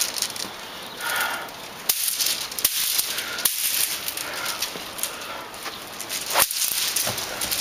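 Loose wooden sticks rattling and clacking as a bundle of them is picked up and handled, with several sharp knocks; the loudest comes about six and a half seconds in.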